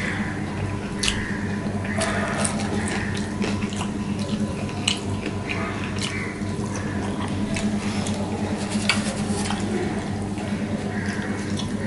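Close-up eating sounds: wet chewing and lip smacking as rice is eaten by hand, with fingers squishing and mixing the rice on a steel plate. Many short wet clicks over a steady low hum.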